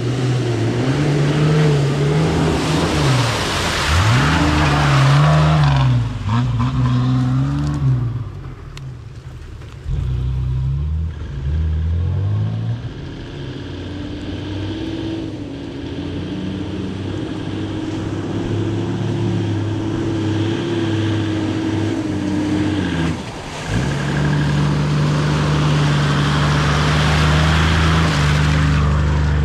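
Four-wheel-drive engine revving up and down again and again as the vehicle pushes through deep mud, then holding a steadier pitch. Near the end it runs louder, with the hiss of tyres churning through the mud as it passes close.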